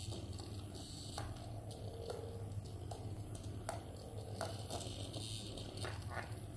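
Small battery-operated vibrating bug toy buzzing faintly as it scoots around a wooden tray, with a scattering of light clicks and taps as it knocks against the tray and a cat's paw bats at it.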